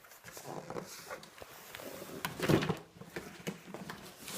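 Cardboard box and packaging being handled as it is opened: scattered clicks, knocks and rustles, with a brief voice sound about two and a half seconds in.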